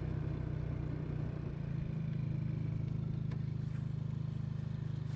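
50cc scooter's single-cylinder engine running steadily, settling into an even pulsing about two seconds in.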